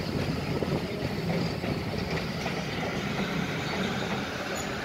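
Locomotive running steadily at close range: a constant low rumble with no distinct knocks or changes.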